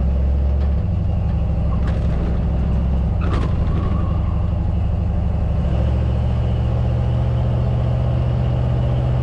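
1955 Ford F100's 302 V8 with C4 automatic running under way at road speed, heard from inside the cab: a steady low engine drone over road and wind noise, its note shifting slightly a couple of times.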